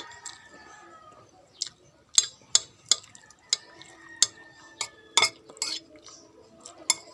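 Spoon clinking and scraping against a soup bowl: a run of about a dozen sharp, irregular clinks.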